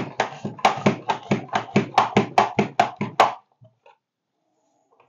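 Pampered Chef Rapid Prep Mandoline worked by its pump handle, slicing a potato into fries: a quick, even run of sharp clacks, about five a second, that stops a little past three seconds in.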